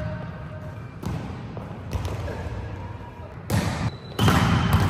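Volleyballs being struck and bouncing on a hard sports-hall floor: a few separate sharp thuds, then a louder, busier run of hits in the last second and a half.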